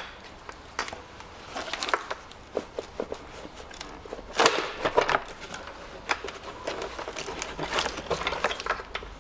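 Plastic intake manifold of a GM LTG 2.0 L four-cylinder being wrestled off the engine: irregular knocks, clicks and rattles of hard plastic against the engine, busiest about four to five seconds in.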